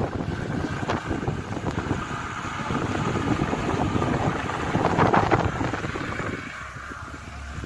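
Vehicle driving over a rough dirt mountain track: dense, irregular rumbling and crackling road noise, with wind buffeting the microphone.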